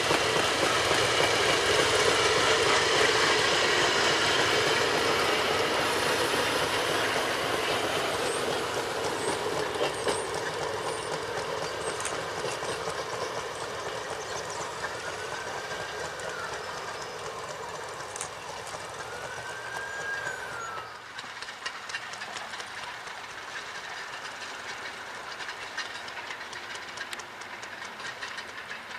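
A motorized rail speeder running along the track and past, its running noise loud at first and fading steadily as it moves away. Two short rising-then-falling whistles sound a few seconds apart partway through.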